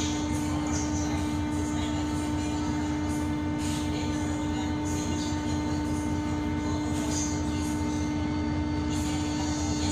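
Car ferry's engines and machinery running steadily, heard aboard: a constant low drone with an unchanging hum over a rumble.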